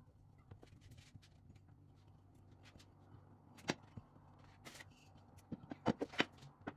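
Sharp knocks and clacks of a glass bottle, used as a rolling pin, being set down and rolled over pie dough on a plastic cutting board. There is one loud knock about halfway through and a quick cluster of them near the end, over faint hand-and-dough handling noise.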